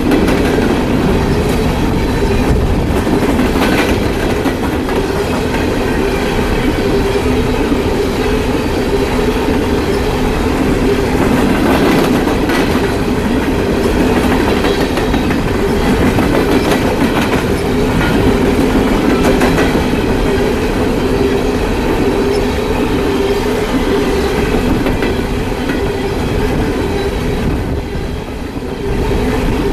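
Empty coal hopper cars of a freight train rolling past at close range: a loud, steady rumble with wheels clicking over rail joints. The sound dips briefly near the end, then comes back up.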